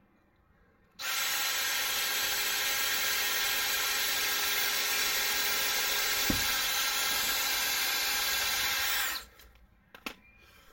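Electric drill running steadily for about eight seconds, drilling a fixing hole, starting about a second in and stopping near the end.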